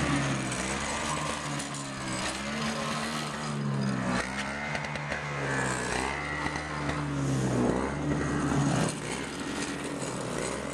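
Snowblower's small engine running steadily, its pitch drifting up and down as it works through wet snow.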